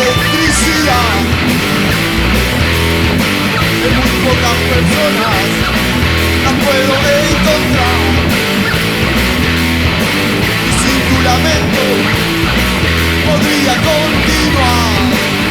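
Instrumental break of a rock song: an electric guitar plays a lead line with bending, sliding notes over a steady, rhythmic bass line from the band.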